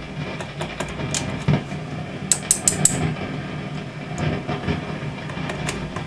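Fender Vibro King valve amp putting out a steady roaring, crackly fault noise through its speaker, with scattered clicks and crackles as the circuit is tapped with a wooden dowel, and a quick run of four sharp crackles about two and a half seconds in. The noise comes and goes when the tag board is flexed, which the repairer takes for a dry joint on the tag board.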